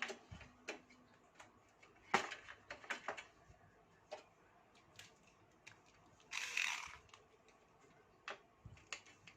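Scattered light clicks and knocks of hands unplugging cables and connectors from an old desktop PC and handling its parts, with one short rasp about six and a half seconds in.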